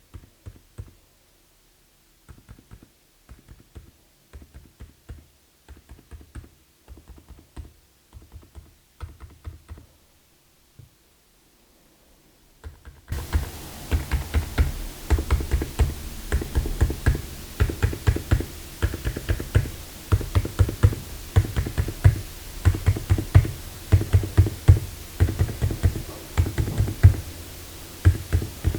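Typing on a mechanical keyboard with silent linear switches. It starts with soft, muted, sparse keystrokes on Akko Fairy Silent switches. Partway through it switches to a louder, denser run of typing on Outemu Silent Peach switches over a steady background hiss.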